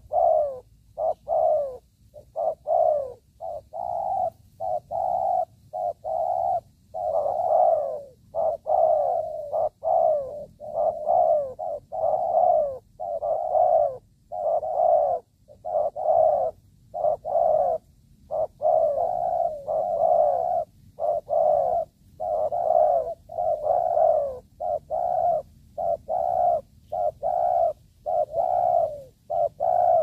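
Spotted dove (tekukur) cooing over and over: low coo phrases follow one another with only short breaks between them.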